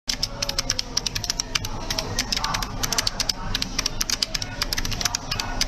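Computer keyboard being typed on quickly, with irregular key clicks several times a second over a low steady hum.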